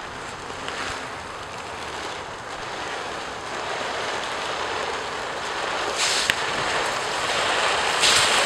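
Plastic sled scraping and hissing as it slides over an icy driveway, growing steadily louder as it approaches, with harsher scrapes about six and eight seconds in.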